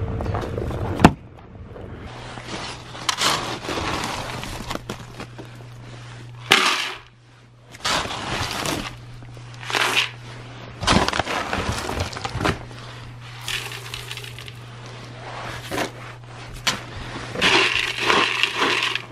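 An ice scraper scrapes a frozen car windshield for about a second. Then, over a steady low hum, come irregular rustles, crunches and pours as feed is scooped and stirred by hand in a plastic bucket of pellets.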